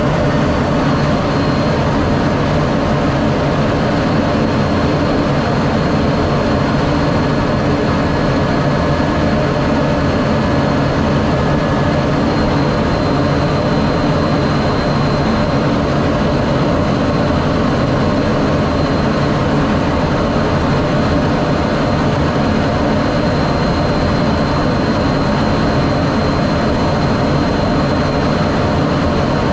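Steady cockpit roar of an F-16 fighter jet in flight, its single jet engine and the airflow over the canopy heard from inside the cockpit. A faint high whine sits on top of it.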